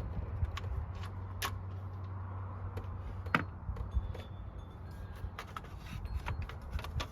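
Scattered metallic clicks and clinks of hand tools and bolts as a heat shield is worked free from around a turbocharger, the sharpest clink about three and a half seconds in. A low steady hum sounds under the first half.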